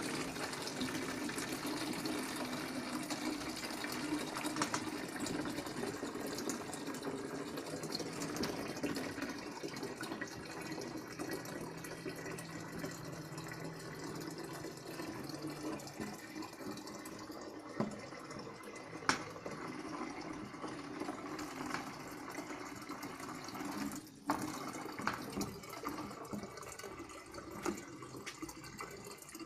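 Water running from a tap into a plastic water canister, a steady rush of filling, with a couple of brief knocks partway through.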